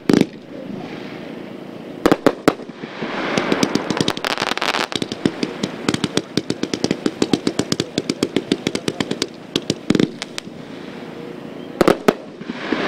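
A Winda Chroma Chameleon Premium 500-gram zipper firework cake firing its shots in fast succession. A run of reports comes several a second through the middle, with a few louder single bangs before and after it and a hiss beneath.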